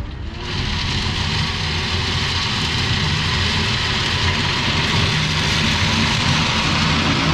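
Cat 299D3 compact track loader's diesel engine running as the machine drives over and grades loose limestone gravel. A steady engine drone is overlaid by a dense gritty hiss of stone under the tracks and bucket, which swells about half a second in and grows slightly louder as the loader approaches.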